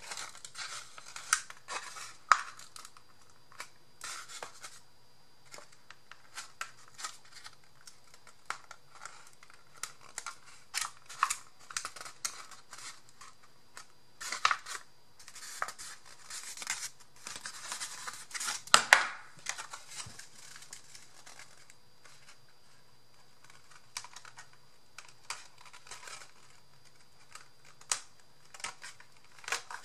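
Cardstock and cardboard being handled and wrapped by hand: irregular paper rustling and scraping with many small clicks and taps, busiest in the middle.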